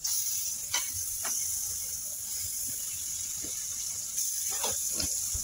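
Butter sizzling as it melts on a hot flat griddle (tawa): a steady high hiss, with a few light clicks.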